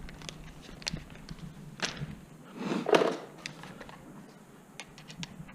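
Small sharp clicks and handling noises from a quick-connect nozzle being fitted onto a pressure washer wand, with a brief rustling scrape about three seconds in.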